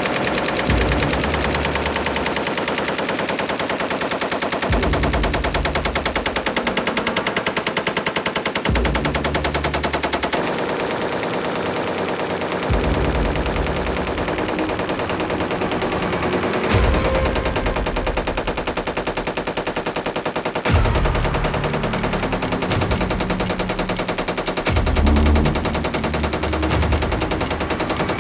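SAR 762 MT belt-fed machine gun firing 7.62×51 mm NATO rounds in sustained automatic fire, a rapid unbroken stream of shots.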